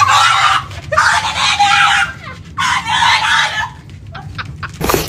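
A person screaming three times in a row, each scream loud, hoarse and about a second long.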